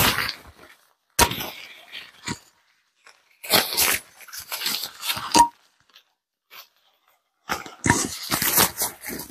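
Rustling and crinkling of the inflatable costume's nylon fabric as it is handled and pulled on, in several bursts separated by short silences.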